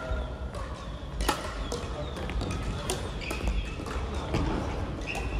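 Crossminton rackets hitting the speeder in sharp, irregular cracks, the sharpest about a second in, with brief squeaks of shoes on the court floor.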